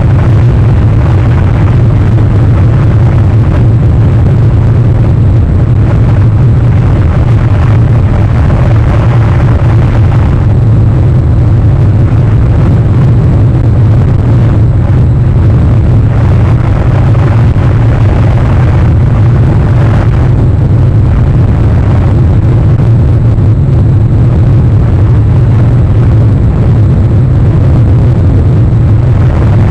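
Wind buffeting the microphone: a loud, steady low rumble with a hiss above it and no distinct events.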